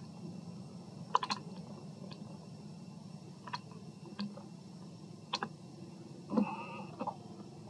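Scattered sharp clicks and taps, about seven in all, over a steady low hum; one click, about six and a half seconds in, carries a brief high note.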